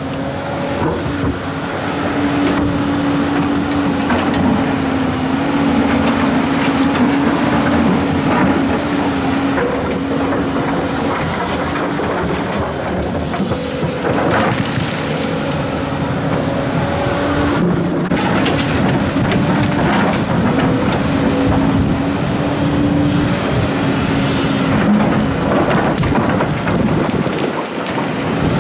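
Komatsu hydraulic excavator working while it places rocks: the engine and hydraulics run with a steady whine that shifts a little in pitch, over a few knocks of rock.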